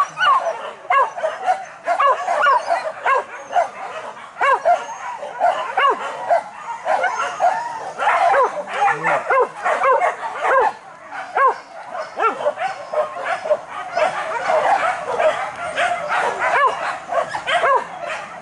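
A pack of hunting dogs yelping and barking on a wild boar hunt, many short high cries overlapping without a break.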